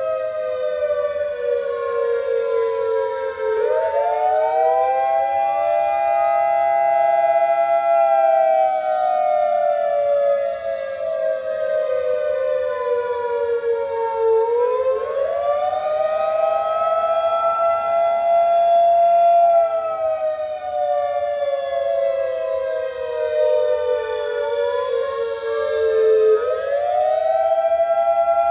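Federal Signal 2001-130 electromechanical tornado siren sounding a steady test signal. Its chord-like tone jumps up quickly about every eleven seconds and then slides slowly down.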